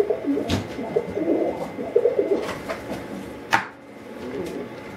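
Domestic pigeon cooing, repeated low wavering coos, with a few sharp clicks.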